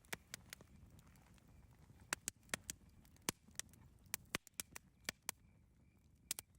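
Campfire crackling: irregular sharp pops and snaps from the burning wood, some in quick clusters, over a low rumble of the fire.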